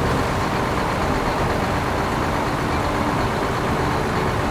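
Radio-controlled model trucks running, giving a steady, unchanging vehicle drone.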